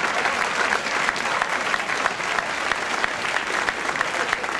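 Television studio audience applauding steadily, a dense patter of many hands clapping.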